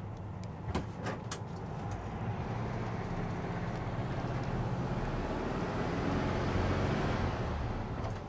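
The air-cooled flat-four of a 1967 Volkswagen 21-window bus running on the move, heard from inside the cabin together with road noise. A few sharp clicks come about a second in, and the sound grows louder through the middle before easing off near the end.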